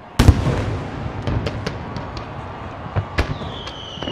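Aerial fireworks display: one loud shell burst a moment in, with rumbling echo, then a string of sharp cracks. Near the end a long falling whistle starts.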